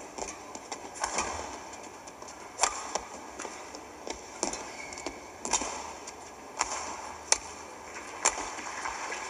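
Badminton rally: rackets strike the feathered shuttlecock back and forth, with about seven sharp cracks roughly a second apart over the steady background of a large hall.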